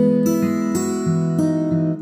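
Background music on acoustic guitar: a steady pattern of plucked notes and strummed chords, changing about every half second.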